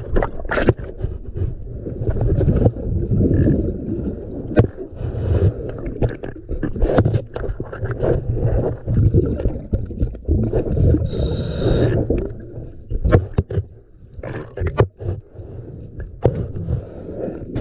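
Underwater sound of a diver at work: bubbling and gurgling, with scrapes and sharp knocks, and a brief hiss about two-thirds of the way through.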